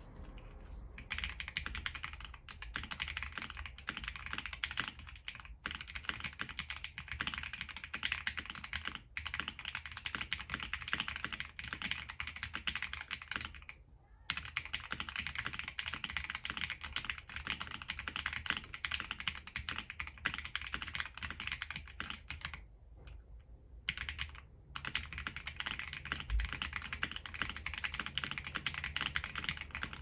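Fast, continuous typing on a Monokei/TGR Tomo 75% mechanical keyboard with lightly lubed Akko Sakura linear switches, a polycarbonate plate in a hybrid o-ring and top mount, Cherry stabilisers and GMK keycaps. The typing stops briefly about 14 seconds in and again for about a second and a half around 23 seconds in.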